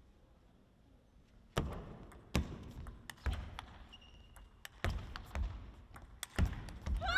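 Table tennis rally: the celluloid ball is struck by rubber-faced bats and bounces on the table, sharp knocks coming roughly every second after a quiet start.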